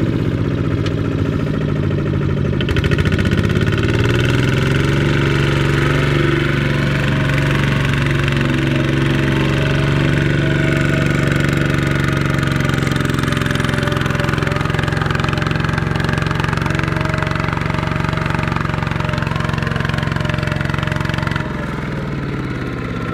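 Two-wheel walking tractor's single-cylinder diesel engine running under load as it hauls a sack-laden trailer through deep mud. It revs up about two and a half seconds in and holds at high throttle, then drops to a lower, slightly quieter pitch near the end.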